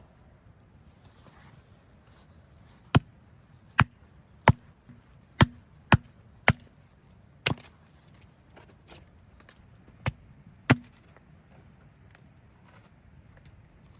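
Firewood being chopped: about nine sharp, irregularly spaced blade strikes on wood, starting about three seconds in and ending near the eleven-second mark.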